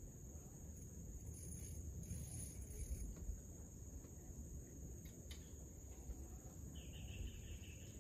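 Insects buzzing steadily at a high, even pitch over a faint low rumble, with a second, lower buzzing call for about a second near the end.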